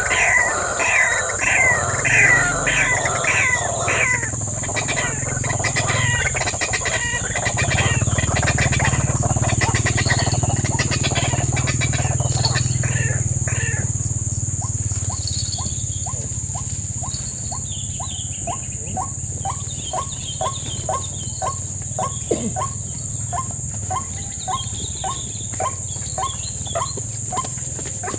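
White-breasted waterhen calls: a rapid run of repeated falling notes in the first few seconds, later a steady series of short clucking notes about one and a half a second. A constant high-pitched drone runs underneath.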